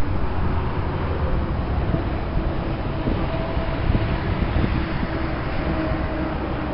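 A brief click, then a steady low outdoor rumble of distant traffic with a faint engine hum.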